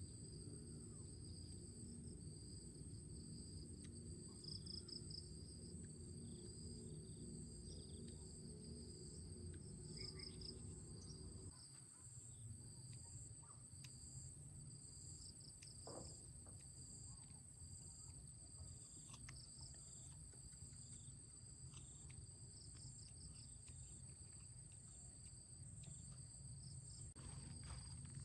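Insects chirring steadily in two high, continuous tones, over a faint low rumble that drops away abruptly about twelve seconds in.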